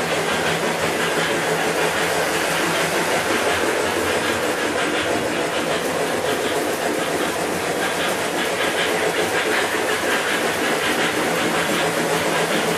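O-gauge model trains running steadily on three-rail track: a continuous rolling and motor noise from the locomotives and coaches moving around the layout.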